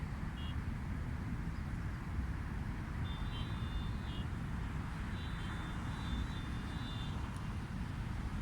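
Steady seaside noise: a low rumble of wind on the microphone over a wash of sea. Faint thin high tones come in briefly near the start, then for about a second from three seconds in, and again for about two seconds from five seconds in.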